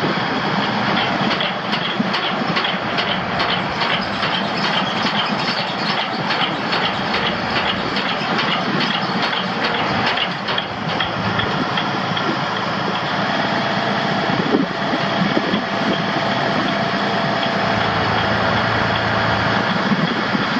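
The Sterling L9500 crane truck's Detroit Diesel Series 60 six-cylinder diesel running steadily, with a rhythmic mechanical clatter of a few clicks a second through roughly the first half.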